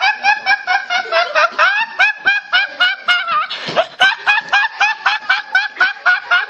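Laughing sound effect edited into the vlog: a rapid, evenly repeated snickering laugh of about five short pulses a second.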